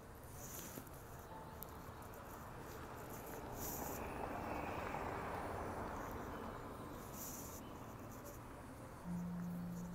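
Quiet street ambience: a car passes, its tyre and engine noise swelling and fading over a few seconds, with faint high chirps now and then. About nine seconds in a low steady hum starts suddenly.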